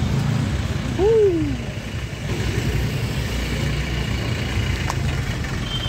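Street traffic: a steady low rumble of motorcycles and cars passing. About a second in, a short, loud call rises and then falls in pitch.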